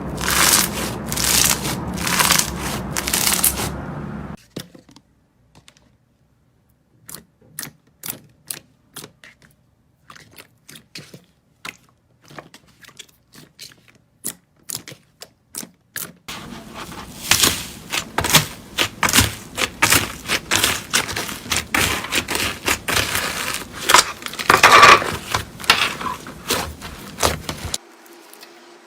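Slime being pressed and squished: dense crackling and popping, then a quiet stretch of sparse separate clicks from about four seconds in, then dense crackling and popping again from about sixteen seconds in.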